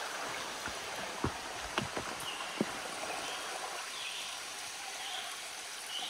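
Creek water running steadily, with a few faint knocks in the first few seconds.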